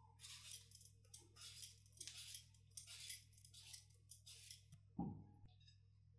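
Vegetable peeler scraping strips of skin off a raw potato in short rasping strokes, about one a second. About five seconds in comes a single dull thump, the loudest sound.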